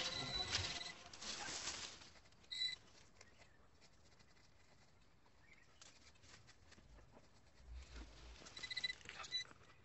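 Hand trowel scraping and digging into packed soil for the first two seconds, fading out. After that come faint scratches and rustles of a gloved hand brushing earth away, and a few short, high squeaks.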